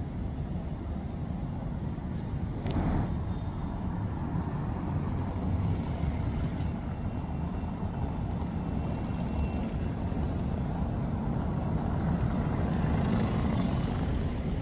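Low rumble of city street traffic, with cars driving past. A single sharp knock comes about three seconds in, and the traffic noise swells near the end.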